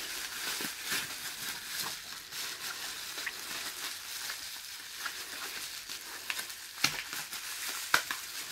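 Plastic bubble wrap crinkling and crackling as it is handled and pulled open by hand, with two louder sharp snaps near the end.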